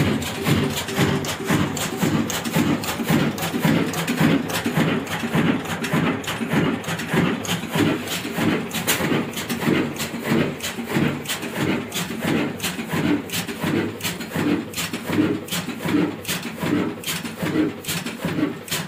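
Old single-cylinder horizontal diesel engine with a heavy flywheel, rated 24 HP, running with an even, rhythmic beat of strokes.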